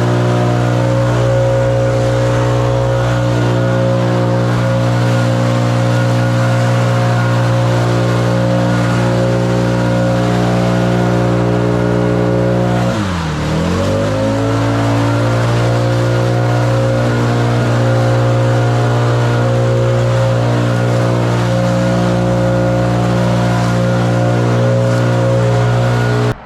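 Small gas engine running steadily at high throttle. About halfway through it drops briefly toward idle, then revs back up.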